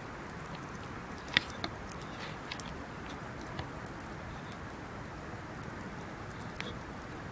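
Wood bonfire crackling: scattered sharp pops and ticks over a steady low hiss, with the loudest pop about a second and a half in.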